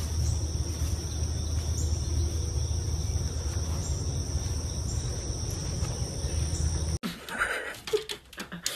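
Steady high-pitched chorus of insects in a weedy field, with a low rumble underneath. About seven seconds in it cuts off abruptly to a quieter room with a few light clicks.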